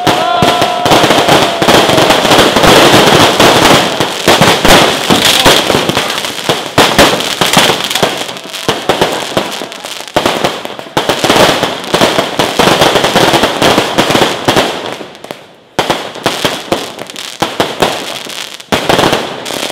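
Fireworks going off in a loud, dense, continuous barrage of crackling bangs, with a short lull about three-quarters of the way through.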